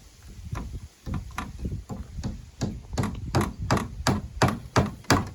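Hammer striking wood in a steady run of blows, about three a second, getting louder toward the end.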